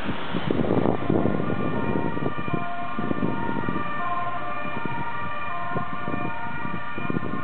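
Ambulance siren sounding, a two-tone call switching back and forth between a high and a low note about every half second, over a low rumble of traffic and wind noise that is strongest in the first second or so.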